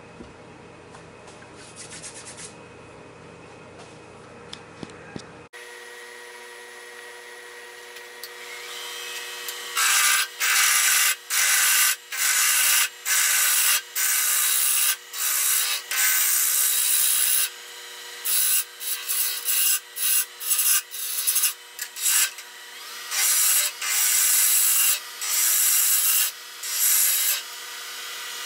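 A wood lathe running with a steady hum while a gouge cuts a small wooden spindle. The cuts come as repeated short bursts of loud hissing, each about a second long. Before the lathe comes in, about six seconds in, there are only faint handling sounds.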